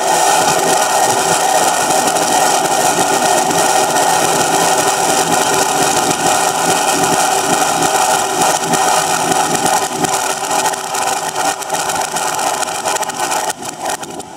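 A fireworks barrage, its bangs and crackles running together into a dense, continuous din. Near the end it breaks up into separate sharp bangs.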